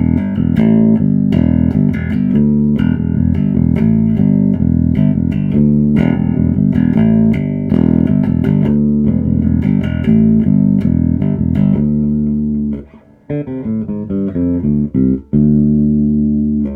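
Five-string Dingwall NG3 electric bass playing a repeated riff through an Ashen APG1000.2 bass head into Trace Elliot 4x10 and 2x10 cabinets, with the amp's blend set halfway between preamp and DI. The playing breaks off briefly about 13 seconds in, resumes, and stops at the end.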